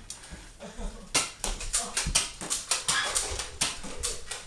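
A quick run of sharp clicks or short noisy strokes, about three to four a second, starting about a second in and running on for about three seconds.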